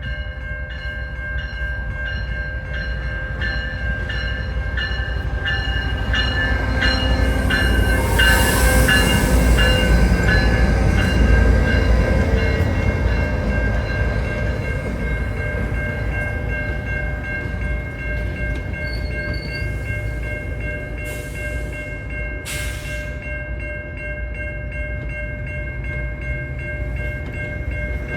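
GO commuter train running past. Its rumble builds to a peak about eight to twelve seconds in and then eases off. Steady high-pitched tones ring throughout, and there are two short hisses near the end.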